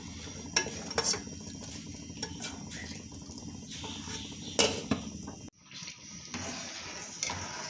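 Steel spoon clicking and scraping against a small pan of bubbling jaggery syrup, several sharp taps over a steady low hiss. About five and a half seconds in the sound cuts to a quieter pot of boiling rice water stirred with a slotted spoon, with a few soft knocks.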